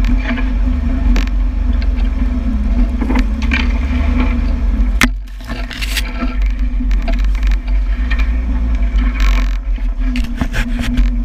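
Land Rover Series 2a engine droning steadily as it drives a snowy trail, with the low rumble dropping away briefly about five seconds in. Branches scrape and snap across the bonnet and camera in several bursts, around the middle and again near the end.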